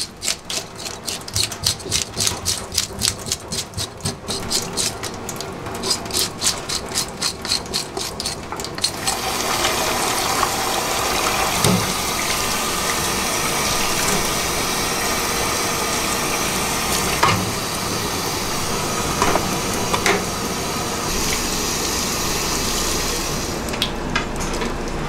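Quick, even scraping strokes, about three or four a second, for roughly the first nine seconds; then tap water running steadily into a stainless-steel sink and splashing over a mullet being rinsed by hand, with a few light knocks.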